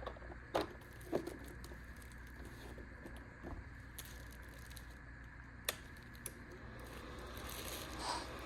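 Scattered light clicks and knocks of small plastic gear being handled and switched. In the last second or so a steady rushing hiss builds up: a portable electric space heater's fan starting to run.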